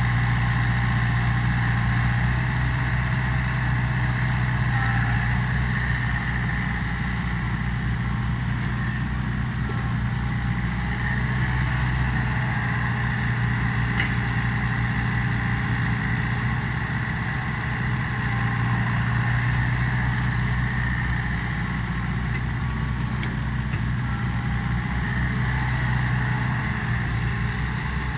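Diesel engine of a Komatsu crawler excavator running with a steady low hum while the machine digs and swings to load a dump truck.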